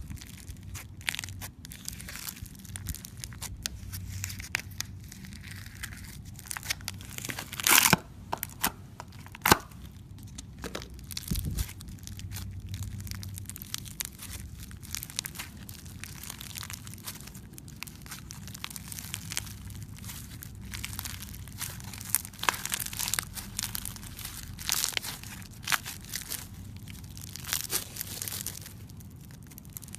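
Crunchy slime being pressed and squeezed, giving irregular crackles and crunches, with the loudest crunches about eight and ten seconds in.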